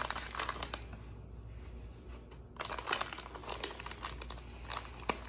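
Crinkling of plastic packaging and small clicks as stick-on lure eyes are handled, in two spells with a quieter gap between.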